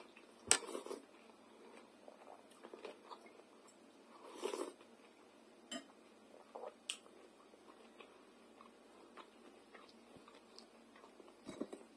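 A person eating fried chebureki and sauerkraut: quiet chewing and bites, with a few sharp clicks of a fork against a glass bowl, the loudest about half a second in.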